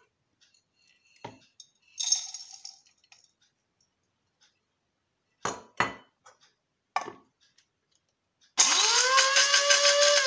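A few light clicks and a short dry rustle, then an electric coffee grinder switches on near the end and runs loudly, its motor whine rising in pitch as it spins up and then holding steady, grinding dried birch and poplar buds.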